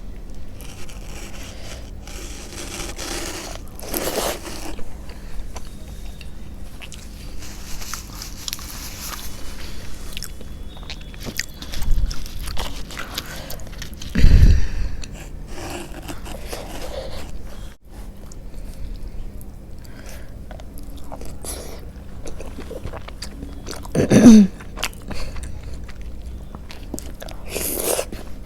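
Close-miked mukbang eating of puri with potato curry: biting and chewing with wet mouth sounds and many small clicks. A few louder, deeper thuds come around the middle and once more later on.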